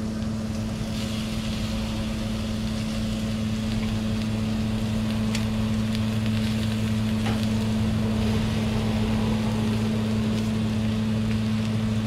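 A steady low hum runs under the faint sizzle of lamb pieces on a hot grill and volcanic stone. Metal tongs click against the grill now and then.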